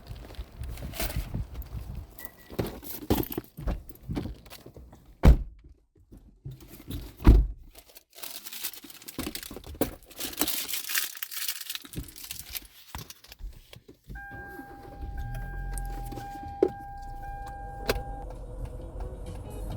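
Getting into a car: rustling, clicks and keys jangling, with two heavy thunks like car doors shutting about five and seven seconds in. About fourteen seconds in a low engine rumble starts and idles, with a steady electronic warning tone for a few seconds.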